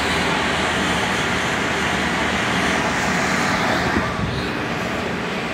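Steady, loud mechanical noise of running plant and vehicles. It eases slightly about four seconds in, with a brief knock.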